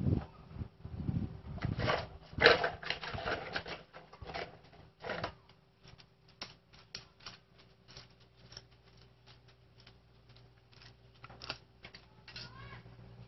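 A motorcycle's rubber inner tube being handled and worked by hand, making short scratching, rubbing and tapping noises. These come in dense clusters for the first few seconds, then thin out to scattered sharp clicks, a few a second. A faint steady hum runs underneath.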